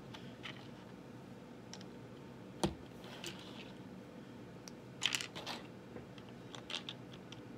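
Plastic Lego bricks clicking and clattering as they are handled and pressed onto a brick plate: one sharp click about two and a half seconds in, the loudest, then a quick cluster of small clicks around five seconds in and a few more near the end.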